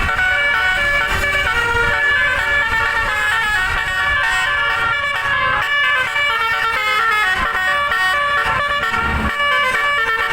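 A bus's modular 'telolet' musical air horn playing a tune continuously, several horn trumpets sounding note after note in quick steps.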